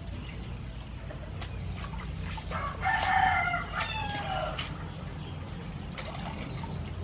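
A rooster crows once, about three seconds in, a loud call falling in pitch toward its end, over light splashing of greens being washed by hand in a metal bowl of water.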